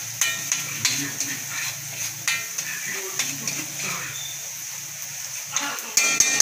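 Chopped onions and chilies sizzling in oil in a steel wok, with a metal spatula scraping and clinking against the pan as it stirs them. The scraping strokes grow louder and closer together near the end.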